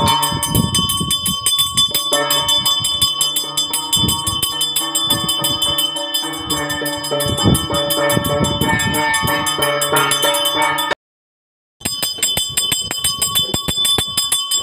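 Handheld pooja bell rung rapidly and without pause during an arati, a fast, even ringing, with a brief break about eleven seconds in.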